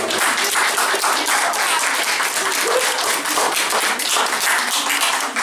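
Small audience applauding: many hands clapping together in a steady patter, with a few voices mixed in.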